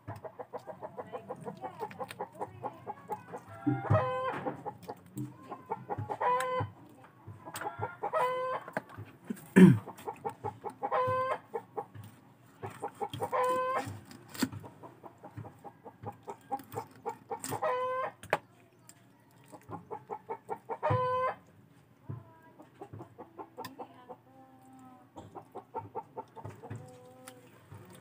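A chicken clucking: runs of quick, evenly spaced clucks that build into a louder, drawn-out squawk, about seven times over. One sharp knock sounds about a third of the way through.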